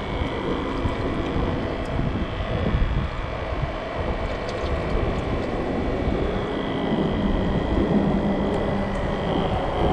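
Steady rumble of road traffic from the nearby highway bridge, with wind on the microphone. A faint engine drone builds in the second half.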